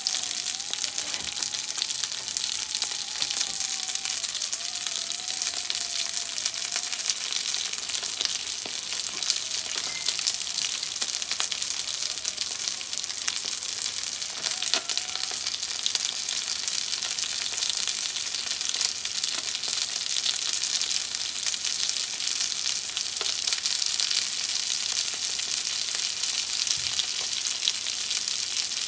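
Frozen gyoza frying in a nonstick frying pan: a steady sizzle with fine crackling. The oil and water frozen onto the dumplings are cooking off, and the starchy liquid around them is browning into a crispy lattice.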